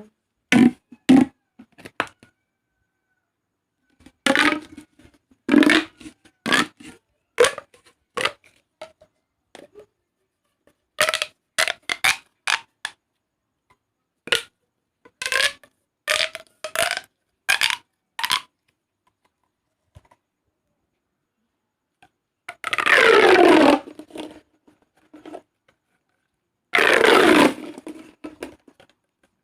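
Plastic pop tubes (corrugated fidget tubes) being bent, stretched and squeezed. They give a scattered series of short, sharp crunchy clicks and pops. Near the end come two longer crackling runs that fall in pitch as a tube is pulled out or pushed together.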